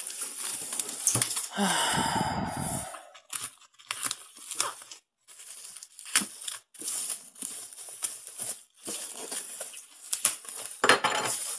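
Clear plastic shrink-wrap on a toy box crinkling and rustling as it is handled, in a run of short crackles. There is a louder, longer rasp about two seconds in.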